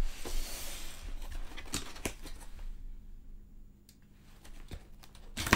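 Large cardboard box being turned and slid across a tabletop, rustling and scraping with a few sharp knocks, then going quieter. Near the end comes one loud, sharp cardboard crack as the lid's tab is pulled to open the box.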